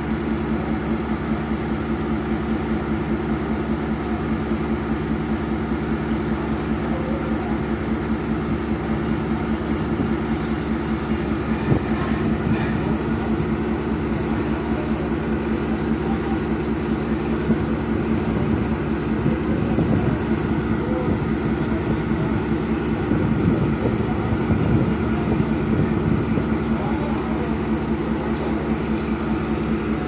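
Diesel-electric locomotive engine (Pakistan Railways ZCU-30) running steadily at low power: a constant, even drone with no horn.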